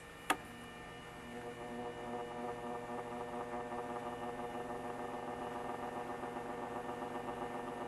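An electric fan is switched on at its high-speed setting with a click, then its motor gives a steady hum with several tones that grows louder over the first couple of seconds and holds. The fan is failing to run properly at high speed.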